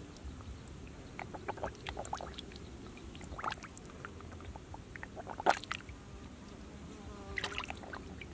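A catfish thrashing in a shallow muddy puddle makes scattered small splashes and slaps on the water. The loudest splash comes about five and a half seconds in.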